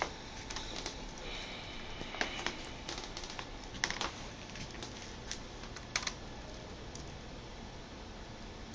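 Small screwdriver and screws clicking and tapping against a laptop's plastic screen bezel as the bezel screws are put back in. Irregular light clicks, thinning out after about six seconds.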